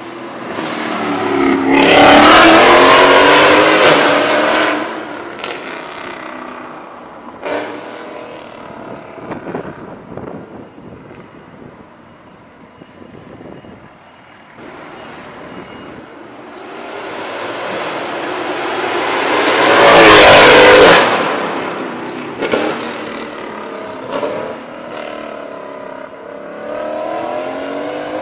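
A W204 Mercedes-Benz C63 AMG's 6.2-litre V8, breathing through a catless Fi valvetronic exhaust, accelerating hard past twice: each run builds loudly with the engine note rising, then fades as the car pulls away. A few short sharp cracks follow each pass.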